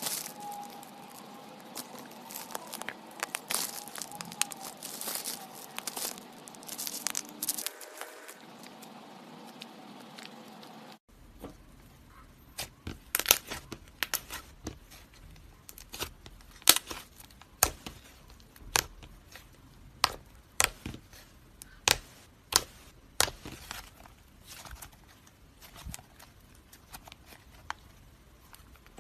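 Slime being squeezed and poked: a dense run of crackles and small pops, then, after a cut about eleven seconds in, separate sharp pops about one or two a second.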